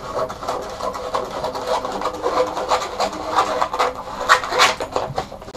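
Brown kraft paper dust cover crinkling and rustling as it is trimmed by hand around the edges of a picture frame back, a busy run of irregular short scratches and crackles.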